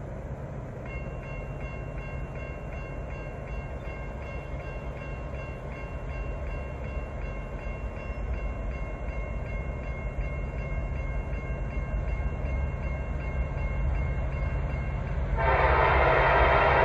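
Norfolk Southern 1068, an EMD SD70ACe diesel locomotive, approaching with a steady low engine rumble that grows slowly louder, under a faint high ringing with an even beat. Near the end its air horn blows loud and sustained.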